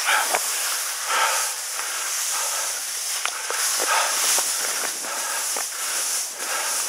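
Skis scraping over heavy, late-season spring snow, a swish at each turn about every second, over a steady hiss, with a few sharp clicks.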